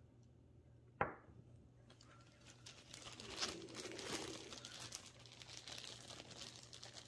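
Thin plastic zip-top bag crinkling as it is handled and rummaged through, faint and crackly, after a single sharp tap about a second in.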